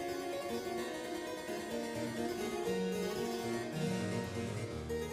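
Background music led by a harpsichord-like keyboard, with a moving bass line.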